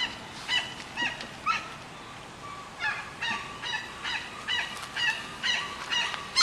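An animal barking over and over in short, high-pitched calls, about two a second, with a brief pause about two seconds in.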